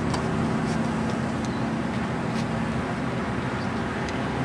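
Steady low motor hum with several held pitches over a constant rushing noise, easing slightly, with a few faint high ticks.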